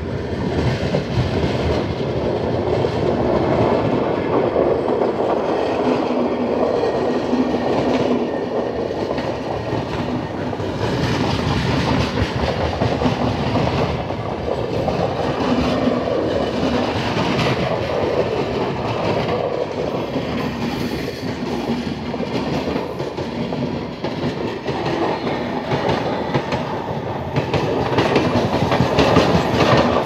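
Red-and-grey LHB passenger coaches of an Indian Railways express rolling past at close range: a steady rumble of wheels on rail with a running clatter, growing a little louder near the end.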